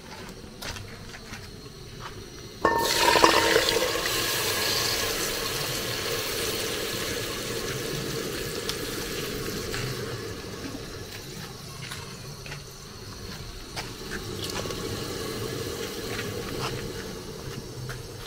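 Liquid rushing into a cooking pot, starting suddenly about three seconds in, then a steady hiss that slowly fades.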